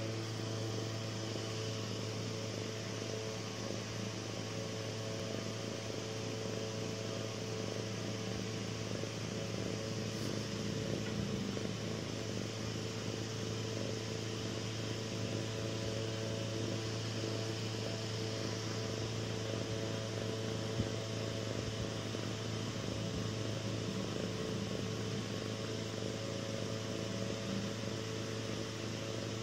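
Ragdoll kitten purring close up as it is stroked: a steady low rumble that never stops, with a brief tick about two-thirds of the way through.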